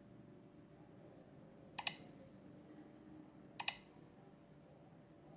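Two sharp double clicks about two seconds apart, over a faint steady hum.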